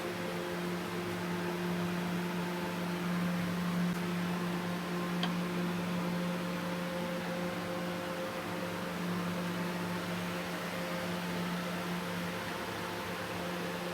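Steady machine hum over a constant hiss, holding the same pitch throughout.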